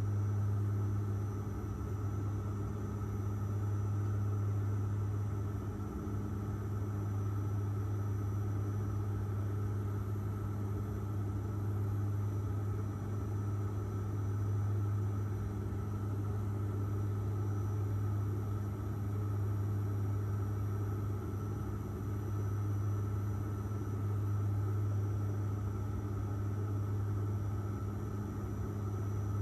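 Airliner cabin noise in flight: the steady drone of the engines, dominated by a strong low hum, with a few fainter steady tones and a faint high whine above it.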